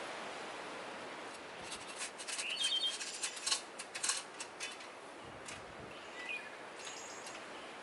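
Birds chirping over a steady background hiss, with a flurry of short, sharp sounds in the first half and a few thinner chirps later.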